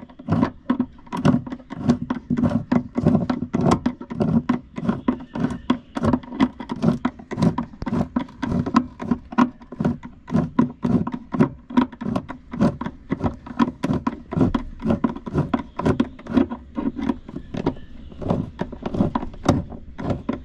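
Repeated hammer blows on metal, about three a second, driving at a seized bolt whose nut has been rounded off.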